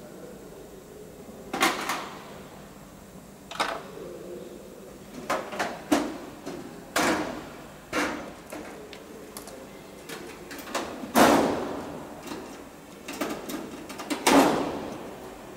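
Aluminium sheet-metal wing skin clanking and rattling as it is handled and pressed against the leading-edge ribs: about a dozen irregular knocks and clatters, each ringing briefly, the loudest two near the end.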